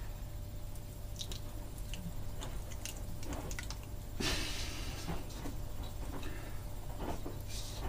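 Hands working a carbon intake back plate and throttle-body runners that are stuck together with black silicone: small clicks and knocks, with a short sticky peeling scrape about four seconds in and another near the end.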